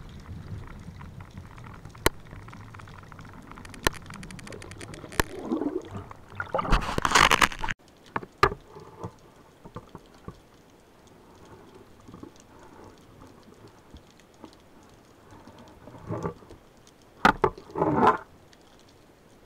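Underwater sound picked up by a spearfisher's camera: a low water rumble with scattered clicks and knocks from handled gear, a loud rush of water about seven seconds in that cuts off suddenly, and two shorter rushes near the end.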